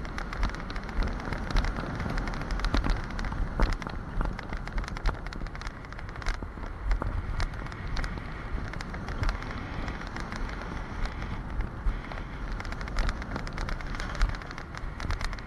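Alpine coaster sled running fast along its tubular steel rails: a steady rumble of the wheels with many sharp clicks and rattles.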